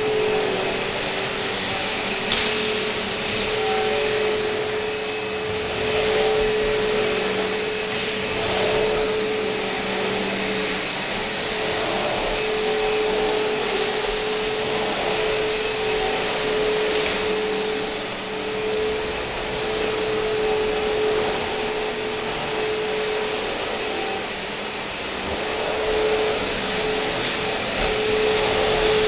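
Vacuum cleaner running steadily, a constant whooshing noise with a steady hum; a single sharp knock about two seconds in.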